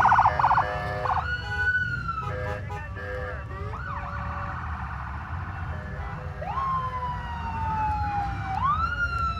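Emergency vehicle sirens: a fast warbling yelp that stops about a second in, then wailing sirens that rise quickly and fall slowly, several overlapping, over a low rumble.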